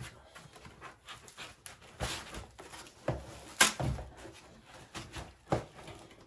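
Foam packing and cardboard rustling and scraping as the contents of a cardboard box are pulled out by hand, in short irregular bursts with one sharper scrape about three and a half seconds in.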